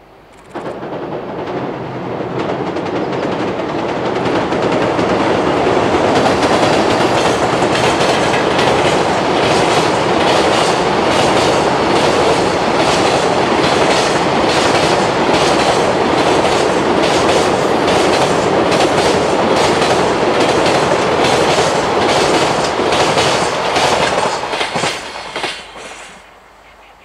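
Container freight train hauled by an EH500 electric locomotive running across a steel girder bridge: a loud, steady rumble with rapid clickety-clack of wheels over the rail joints. It starts abruptly about half a second in and dies away over the last couple of seconds.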